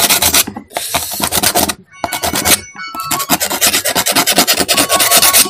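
Rapid scraping and rubbing strokes as the rusty insides of a motorcycle horn relay are scrubbed clean, with a short pause near the two-second mark.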